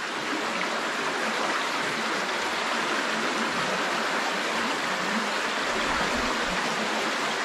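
A small creek running: a steady, even rush of flowing water.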